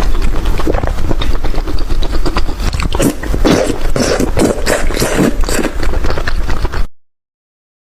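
Loud chewing and biting of food, a dense run of short crunching clicks that cuts off suddenly near the end.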